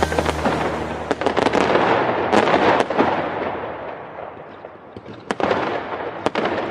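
Fireworks going off: a dense crackling hiss with scattered sharp bangs that dies down midway, then a new run of sharp bangs near the end.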